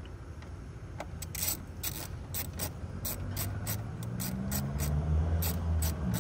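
Hand ratchet clicking in short runs as the dashboard panel screws are driven back in. A vehicle engine hum grows louder near the end.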